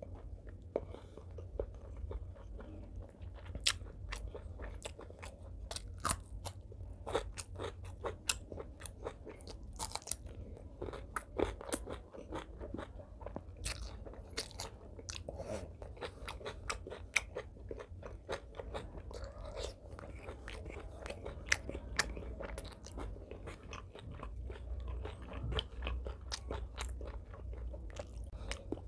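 A person chewing and crunching food close to the microphone, with many sharp wet mouth clicks and smacks throughout, over a steady low hum.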